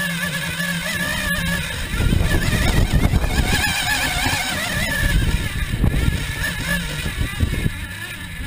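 Radio-controlled car's motor running as the car drives over grass, heard from a camera mounted on the car. A wavering whine sits over a steady rumble and rattle, which grows louder about two seconds in.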